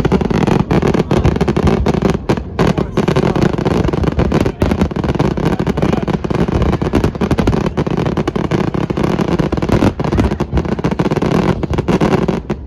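Fireworks going off in a rapid, continuous barrage of bangs and crackles, with no break.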